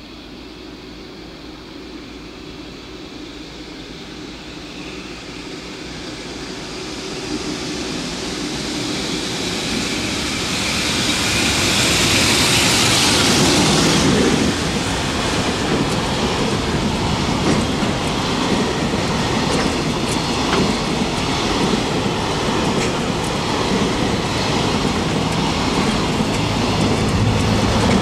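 Electric container freight train approaching and passing below: the sound builds for about twelve seconds to its loudest as the locomotive goes by. Then a long rake of container wagons rolls past with a steady rumble and the clatter of wheels on the rails.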